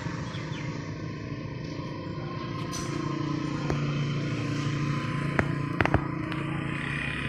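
An engine running steadily with a low hum, with a few sharp clicks about five and a half to six seconds in.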